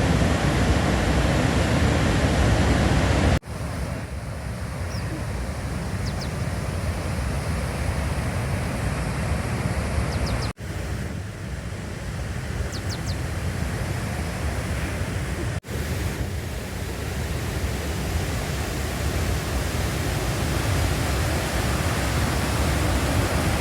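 Victoria Falls' main falls: a continuous, heavy rushing of falling water, deep and rumbling, with wind buffeting the microphone. The noise drops out for an instant three times, and a few faint high chirps sound over it.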